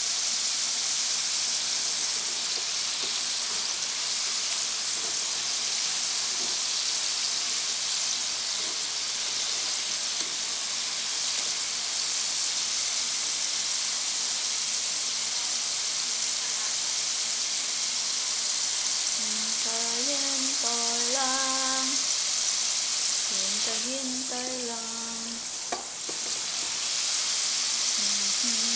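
French fries deep-frying in hot oil in the basket of an electric deep fryer: a steady, dense sizzle.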